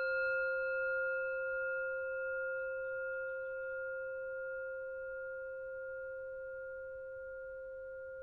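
A single struck bell tone ringing on, a low note with higher overtones, slowly fading away.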